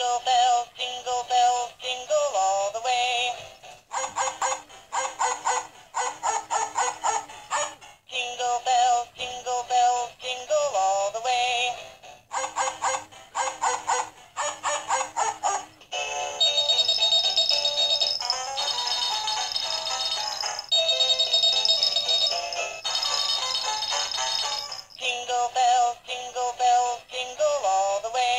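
Hallmark Jingle Pals animated snowman-and-dog toy playing its Christmas song: a synthesized voice singing in short phrases, with a steadier instrumental stretch of held high notes in the middle before the singing returns.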